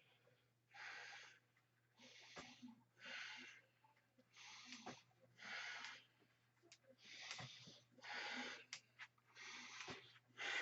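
A man breathing hard after a set of push-ups: a steady run of noisy breaths, about one a second, as he recovers from the exertion.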